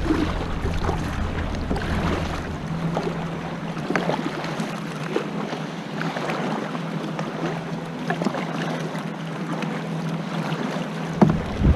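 Choppy river water splashing and slapping around a kayak being paddled, with wind buffeting the microphone at the start and again near the end. A small boat's motor hums steadily underneath.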